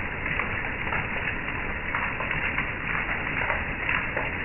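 Heavy rain falling on a wooden deck, a closed patio umbrella and a metal mesh table: a dense, steady hiss of drops with frequent sharp taps.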